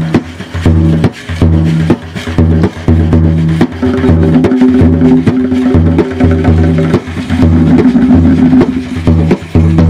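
Ensemble of large frame drums and other hand drums played with bare hands, in a dense, driving rhythm of deep booming bass strokes mixed with sharp rim slaps.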